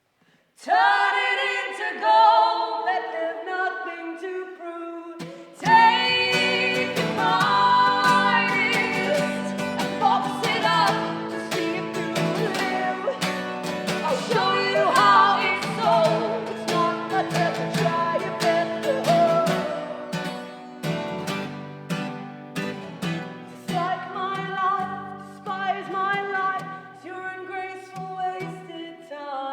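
Live folk-pop from a duo: voices singing together in harmony, at first almost unaccompanied, then with guitar strumming coming in about five and a half seconds in.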